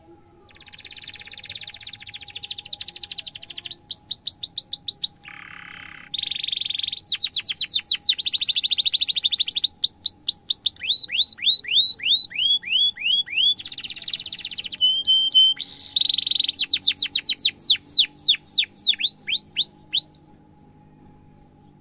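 Domestic canary singing a long, continuous song: rapid rolling trills alternating with runs of quick repeated rising 'cuit' whistles, phrase after phrase, stopping about a second and a half before the end.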